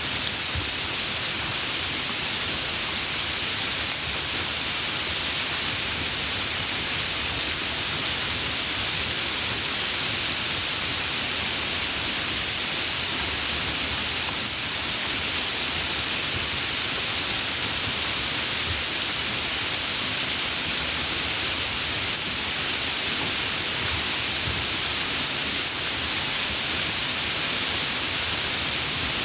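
Gentle rain falling steadily, an even hiss of drops with no breaks.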